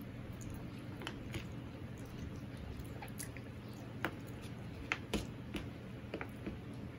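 Eating rice and curry by hand from a steel plate: chewing, and fingers squishing and mixing rice on the plate, heard as scattered soft wet clicks over a steady background hiss.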